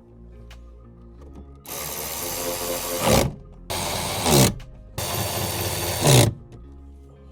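Power drill run three times in quick succession, each run lasting one to one and a half seconds and falling in pitch as the motor winds down at the end. Background music plays underneath.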